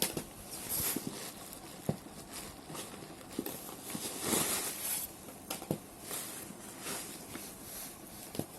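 CDs and their packaging being handled while a box is unpacked: irregular clicks and light knocks of plastic cases, with bursts of rustling.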